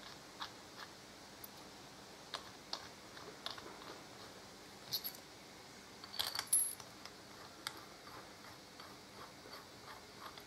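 Steel mounting bolts clinking against a chrome Harley-Davidson brake caliper as they are pushed into its bolt holes by hand: scattered light metal clicks, with the loudest cluster about six seconds in.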